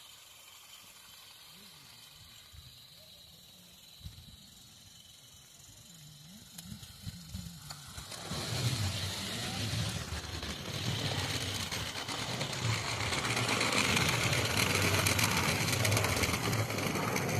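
Miniature garden-railway train running on the track, quiet at first and then growing steadily louder from about halfway through as it comes near, a dense rattling running sound that holds at its loudest near the end.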